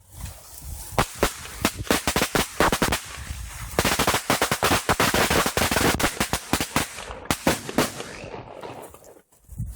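A string of firecrackers going off in a rapid run of sharp bangs, densest in the middle and thinning out to a stop near the end.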